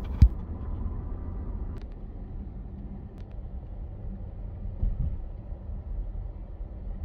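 A car driving at road speed, heard from inside the cabin as a steady low road-and-engine rumble. A sharp thump comes just after the start and a smaller knock about five seconds in.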